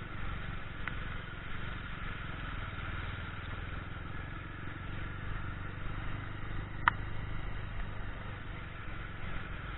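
Motorcycle engine idling steadily, with one brief sharp sound about seven seconds in.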